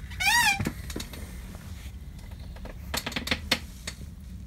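A brief high, wavering squeak near the start, then a few sharp clicks about a second in and again around three seconds in, among them the click of a light switch turning the room lights off, over a faint low hum.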